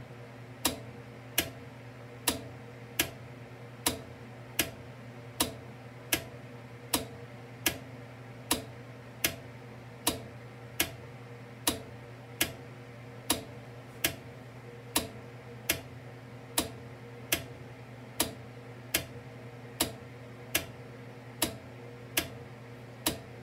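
GRS type K DC flasher relay clicking as its armature swings back and forth, one sharp click about every 0.8 seconds, each one switching the flash between the two incandescent crossing lamps. A steady low hum runs underneath.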